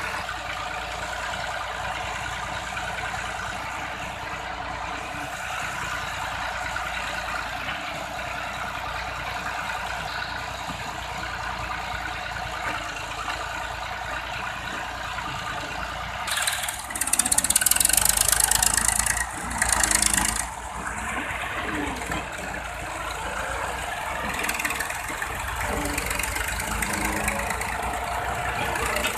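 Massey Ferguson 260 tractor's diesel engine running steadily. Partway through there is a loud hiss, twice in close succession, over the engine.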